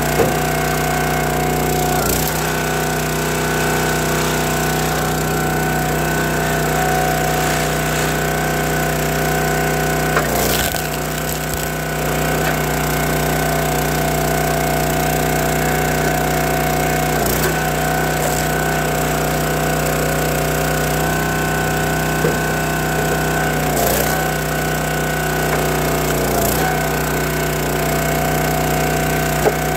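County Line hydraulic log splitter's small gas engine running steadily, with a sharp crack every few seconds, about six in all, as red oak and maple rounds split on the wedge.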